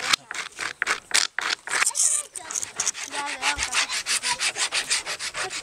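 A hand tool worked quickly back and forth on a rough wooden board, giving a rasping, sawing sound of about six even strokes a second.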